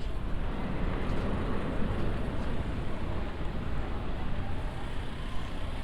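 Busy city ambience: a steady wash of traffic and crowd noise, heaviest in the low end.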